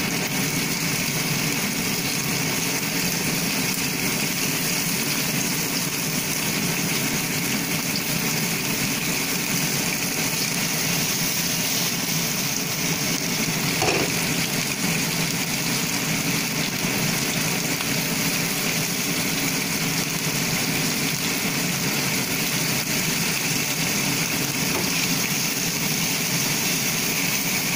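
Kitchen range hood fan running steadily over whole fish frying in hot oil in a nonstick pan, the oil sizzling under the drone. A single light knock about fourteen seconds in.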